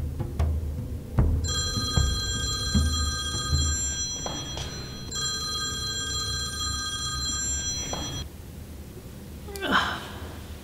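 A phone ringing twice, each ring a steady electronic trill of several high tones lasting about two to three seconds, with a short pause between. Low rumbling drum-like music runs underneath during the first ring, and a brief swishing noise comes near the end.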